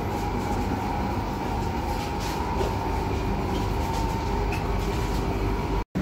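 Steady running noise inside an executive passenger-train carriage: a low rumble with a constant high hum over it and a few faint ticks, as the train pulls into a station. It cuts out abruptly just before the end.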